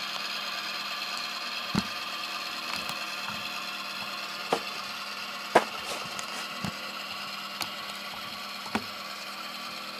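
Model locomotive sound decoder playing a diesel switcher's engine through the model's small speaker: a steady, idling-style hum that slowly fades, with about six sharp clicks scattered through it.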